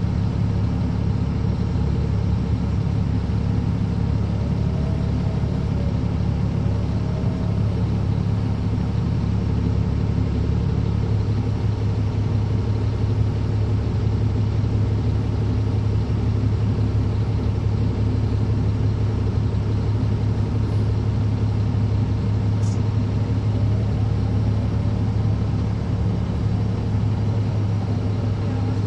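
Caterpillar C13 ACERT inline-six diesel engine of a 2009 NABI 40-SFW transit bus, heard from inside the bus cabin, idling with a steady low drone. The pitch stays level with no revving.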